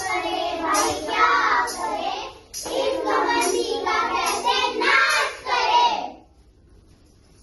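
A group of children singing together in chorus, stopping about six seconds in.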